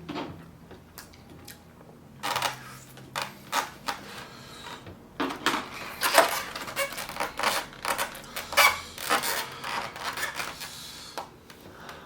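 Close-miked chewing and mouth noises of someone eating: an irregular run of wet smacks and clicks, busiest after the first couple of seconds.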